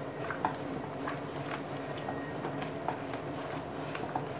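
A spoon stirring and scraping thick, sticky wheat halwa around a cooking pan, giving irregular soft clicks and scrapes. The halwa has thickened until it slides around the pan as a mass.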